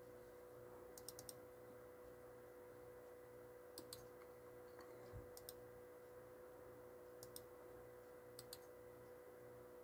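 Faint clicking from operating a laptop, short runs of two to four quick clicks a few times, over a steady faint electrical hum.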